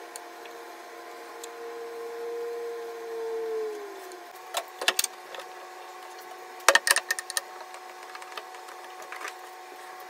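Steel pipe clamps knocking and clanking as they are laid across a glued-up wooden panel and their jaws set, in two quick clusters of knocks about two seconds apart. Underneath runs a steady machine hum, one tone of which slides down and stops about four seconds in.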